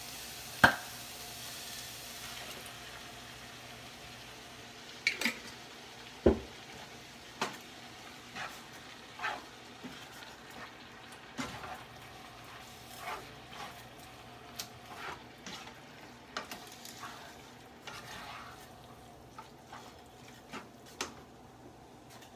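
Ground beef, onions and peppers sizzling in a nonstick skillet as tomato sauce is stirred in, with scattered knocks and scrapes of a spoon against the pan. The loudest knock comes about half a second in.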